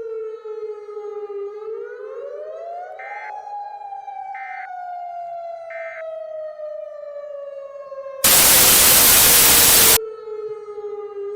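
Tornado warning siren wailing: its pitch dips, rises over about two seconds, then slowly falls. Three short high beeps sound over it, and about eight seconds in a loud burst of static drowns it for nearly two seconds.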